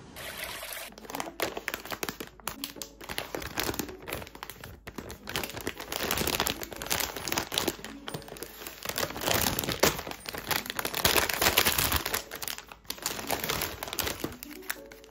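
Plastic snack packaging crinkling: a bag of individually wrapped chocolate biscuits is handled and opened, and the wrapped pieces spill out, with an irregular run of crackles and rustles.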